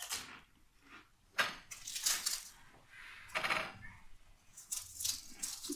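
Golgappa (pani puri) being eaten fast: a run of about six short crunching and slurping noises as the crisp shells are broken and eaten with their spiced water.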